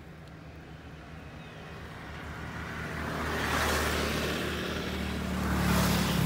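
A motor vehicle going by, its noise building about two seconds in and swelling twice over a steady low hum.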